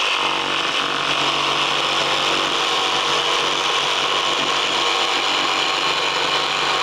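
Jigsaw with a coping foot running steadily while its blade cuts a cope into the end of a baseboard molding, finishing the profile from the top.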